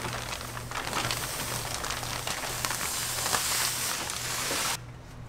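Flour pouring from a sack into a stainless steel mixer bowl: a steady rushing hiss with fine crackle, which drops off sharply near the end.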